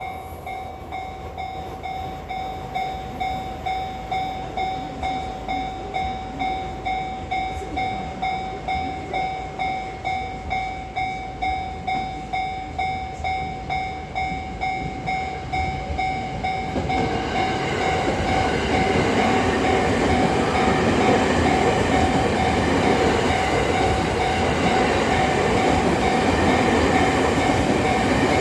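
Japanese railway level-crossing warning bell ringing steadily, about two strikes a second. About 17 seconds in, a train arrives and runs over the crossing, its wheel and running noise rising and continuing under the bell.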